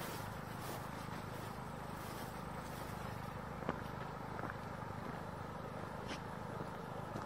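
Steady rushing of floodwater flowing across a submerged road, with a low steady hum beneath it and a few faint clicks.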